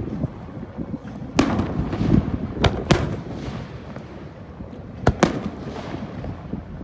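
Aerial fireworks bursting: a series of sharp booms, several close together near the middle and two in quick succession about five seconds in, over a continuous low rumble of echoing and crackling shells.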